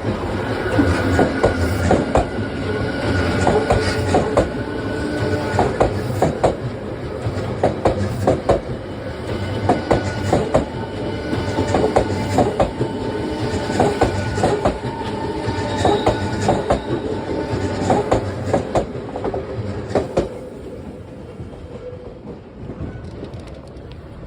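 Odakyu Line electric train running past the level crossing, its wheels clicking repeatedly over the rail joints with a steady whine from the train. The train sound falls away about 20 seconds in.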